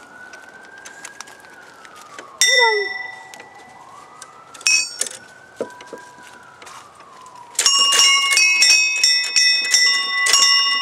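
Playground chime tubes, hollow metal tubes struck by hanging balls pushed by hand, ringing: one strike about two seconds in, another around five seconds in, then a quick run of overlapping strikes for the last few seconds. Before the strikes a faint siren wails slowly up and down in the background.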